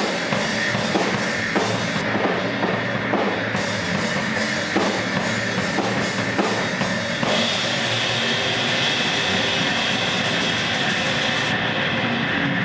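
Live drum kit and electric guitar playing instrumental rock. About seven seconds in the regular drum strokes stop, leaving a steady, dense wash of noise.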